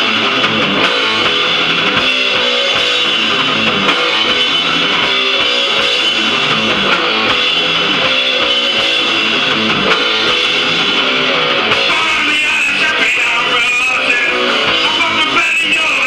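Punk rock band playing a guitar-led song, loud and steady.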